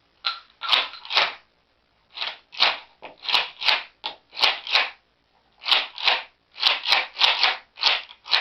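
Mossberg 500 pump-action shotgun being racked over and over to unload it. The slide's metal action gives a quick run of sharp clacks in clusters of two and three as shells are cycled out.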